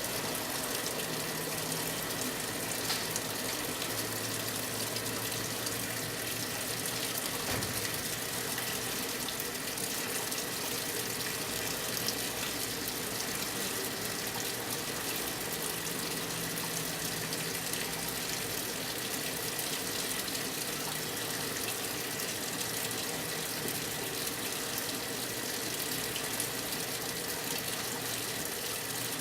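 Brastemp 9 kg washing machine filling with water for the high water level: a steady rush of water pouring into the tub.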